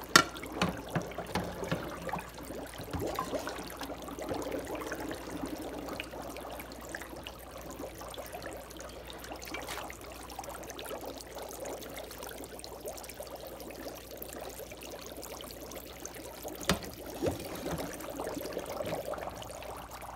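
Water in a sink with dry ice in it, sloshing and bubbling unevenly as it is stirred about, with a few sharp knocks against the sink: the loudest right at the start and two more near the end.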